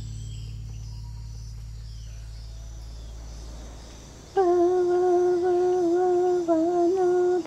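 A low steady drone fades out over the first four seconds. Then a woman's voice starts humming a slow chant in long held notes, with small dips in pitch.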